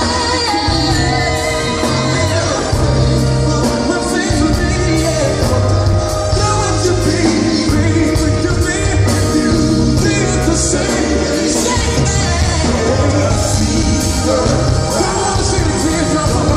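Male R&B lead vocalist singing live into a microphone over a full band with bass, keyboards, guitar and drums, played loud through an arena PA.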